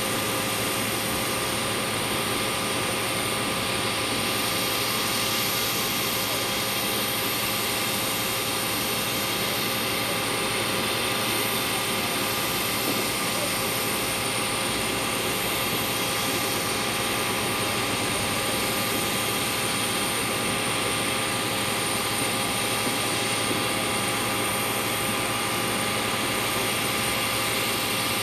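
Steady jet turbine noise: an even rush with several high, steady whining tones and no change in level.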